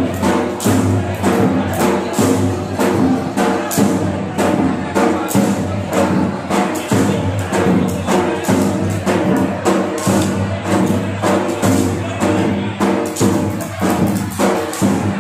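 Devotional folk music with a steady beat of jingling hand percussion, about three strokes a second, over sustained held notes.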